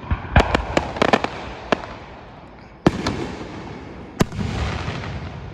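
Aerial fireworks bursting: a quick run of sharp bangs in the first second, then single loud bangs at about three and four seconds, each trailed by crackling and a low rumbling echo.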